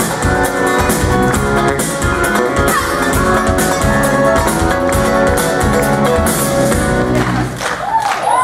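Live rock band playing an instrumental passage with electric guitar and drums, heard through a hall's sound system; the drumming stops about seven and a half seconds in as the song winds down.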